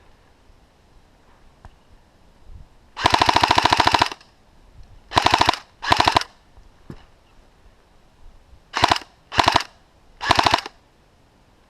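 Airsoft gun firing on full auto: a burst of about a second, then five shorter bursts in two groups, each a rapid even rattle of shots.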